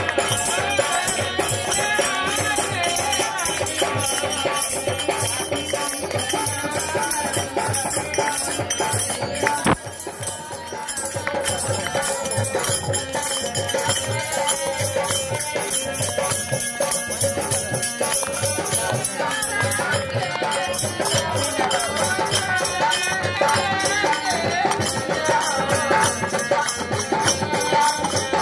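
Indian folk singing with a fast, steady rattling percussion beat. The sound dips briefly about ten seconds in.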